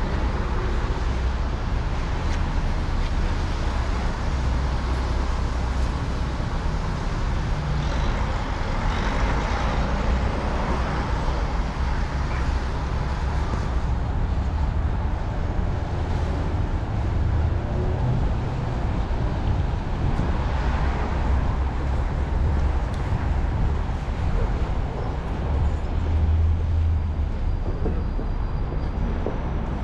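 City street traffic: a steady low engine rumble, with passing vehicles swelling and fading over it several times.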